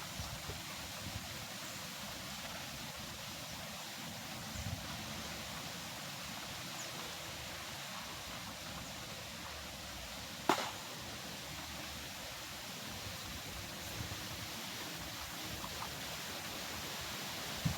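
Steady wash of wind and trickling water, with one sharp click a little past the middle and a few faint ticks.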